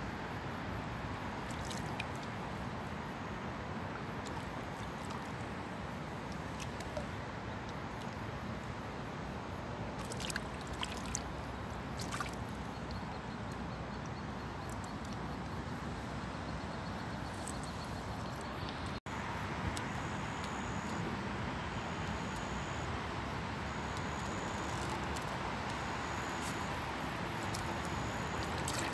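A hooked crucian carp splashing and sloshing in shallow water as it is drawn to the bank, over a steady rushing background noise, with a few light clicks. After a break about two-thirds through, the steady noise continues with a faint high chirp repeating about every second and a half.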